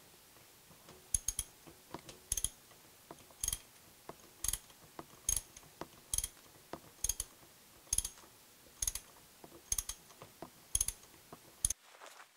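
Sharp metallic clicks at a steady pace, about one a second, each with a brief high ring. They stop shortly before the end.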